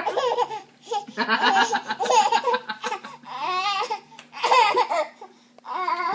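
Baby laughing in about five bursts with short pauses between: the fits of laughter of an overtired baby.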